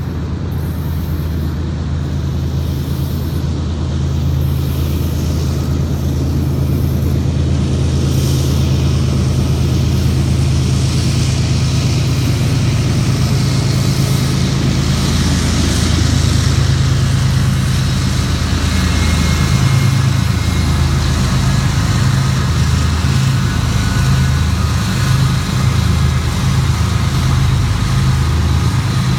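Several diesel-electric freight locomotives running as they approach and pass close by, a loud, steady low engine drone under a rushing noise. About two-thirds of the way in, the drone turns uneven and pulsing as the units go past.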